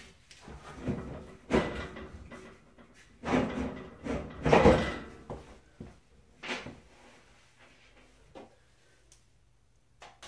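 Drawers and panels of a flat-pack filing cabinet being pushed, banged and knocked into place: a run of clattering bangs, loudest around the middle, then a few separate knocks further apart.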